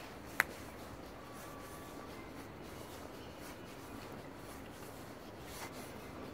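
Footsteps of a person walking on an asphalt path, with rubbing handling noise on the handheld microphone and one sharp click about half a second in.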